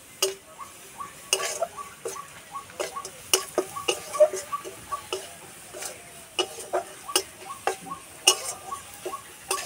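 Metal spatula scraping and tapping against a steel kadai while stirring ground spices as they fry: an irregular run of clicks and scrapes, several a second, some with a short metallic ring.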